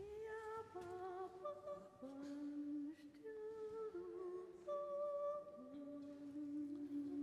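Vocal ensemble humming slow, sustained chords in several parts, the chord changing about once a second.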